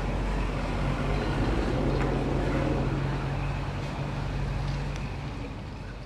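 1969 Mercury Cougar XR-7's V8 engine running as the car pulls away at low speed. It is loudest about two seconds in, then fades as the car drives off.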